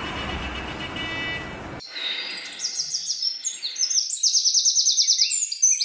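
Steady traffic-like outdoor hum for about the first two seconds, then an abrupt cut to songbirds singing: rapid high chirps and fast trills, one long trill about four seconds in.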